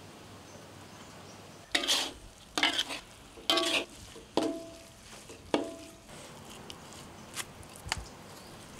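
Metal spoon stirring grated coconut into melted palm sugar in an aluminium wok: about five scraping strokes, some with a brief metallic ring, then a few light clicks near the end.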